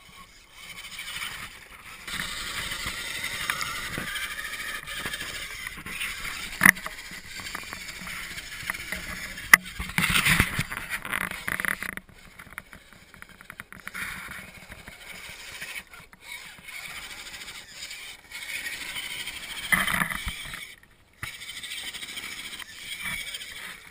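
Electric drive motor and gears of an RC scale crawler truck whining and rising and falling as it drives through shallow creek water, with splashing and tyres scraping on a log. Two sharp knocks come about a third of the way in, and there are louder bursts of effort near the middle and again near the end.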